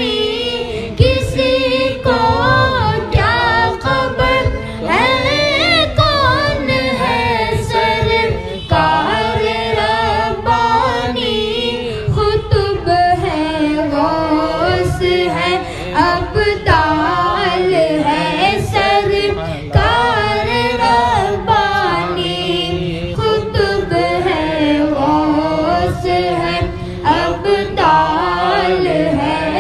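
A boy's high voice singing a manqabat, a devotional song in praise of a Sufi saint, in a flowing, ornamented melody with long held and wavering notes, over a low pulsing backing.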